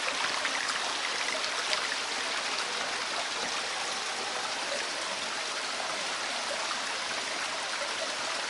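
Water running steadily through a cave passage from the cave's underground stream and waterfall: an even rushing splash with no let-up.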